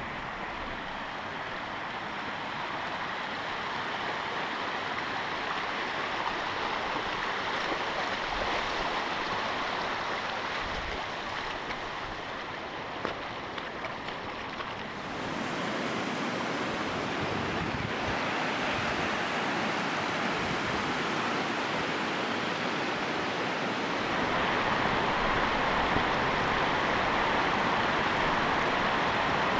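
River water rushing over rock in a steady rush, growing fuller about halfway through and louder again near the end.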